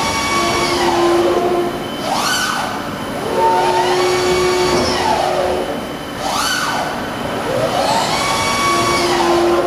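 Servo drives of a Parpas machining centre's swivelling milling head whining as the head repositions. Each move is a whine that rises in pitch as the axis speeds up, holds steady, then falls as it stops. Longer moves alternate with short quick rise-and-fall moves, about every two seconds.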